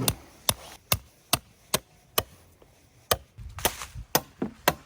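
Sharp knocks struck in a steady rhythm, about two a second, with a short pause a little past halfway.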